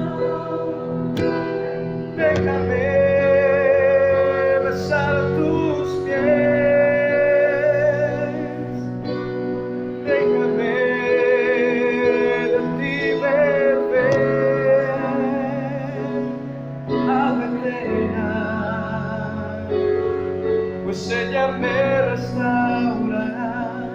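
Worship song: long held sung notes with vibrato over steady instrumental accompaniment.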